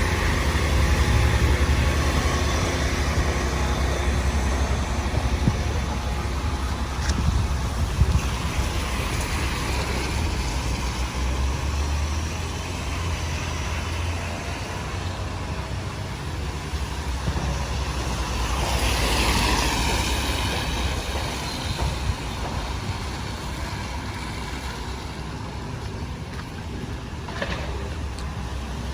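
Street traffic: a vehicle's engine rumbles close by for the first dozen seconds, and another vehicle passes with a swelling hiss about nineteen seconds in.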